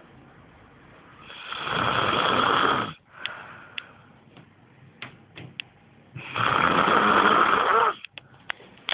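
A sleeping man snoring: two long, loud snores, each close to two seconds, about four seconds apart, with quieter breathing and a few small clicks between them.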